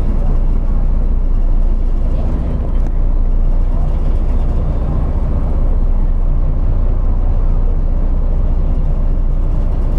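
A motor vehicle running steadily: a constant low engine drone with road noise.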